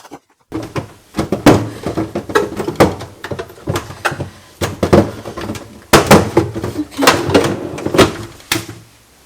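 Repeated knocks and clatter of containers and groceries being handled and set down, many sharp hits in quick, uneven succession.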